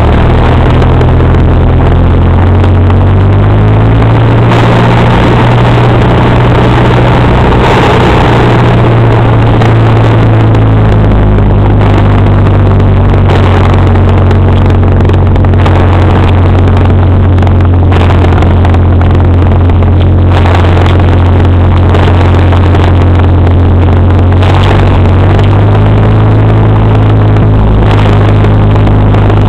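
Single-engine propeller plane's piston engine and propeller running loud from inside the cockpit while taxiing on a grass airstrip, the engine speed stepping up and down a few times.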